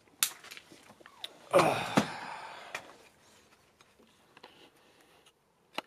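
A few sharp clicks and knocks of handling, and about a second and a half in, a breathy, sigh-like sound that lasts about a second.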